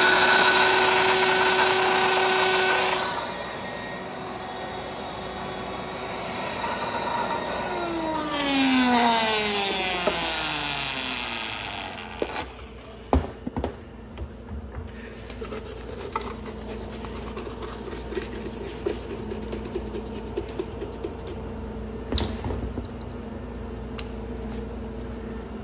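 Commercial countertop smoothie blender running loudly as it blends a pomegranate smoothie, then quieter. It briefly speeds up, then winds down with a falling whine over about three seconds. After it stops, scattered knocks and taps follow over a steady hum.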